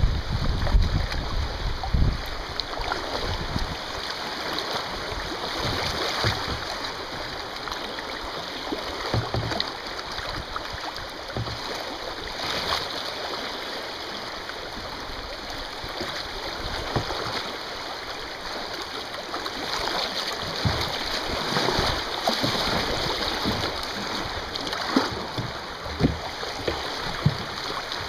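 Shallow river water rushing steadily over rocks in a riffle around a kayak, with scattered splashes and knocks from paddle strokes, a few sharper ones near the end.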